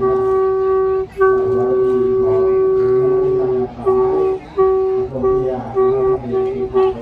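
Sanai, a buffalo-horn trumpet, blown on one steady note: a long held blast of about two and a half seconds, then a quick run of short toots, about three a second, near the end.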